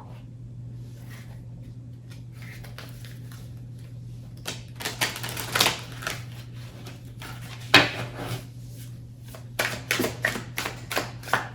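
A deck of oracle cards being shuffled by hand: quick clusters of card slaps and riffling clicks starting about four seconds in, over a steady low hum.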